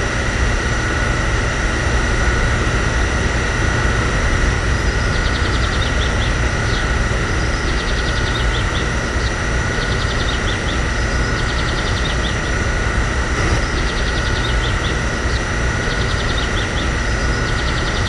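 Small DC motor of a mini water pump running steadily, a constant whine over a low hum, with faint clicking every couple of seconds from a few seconds in.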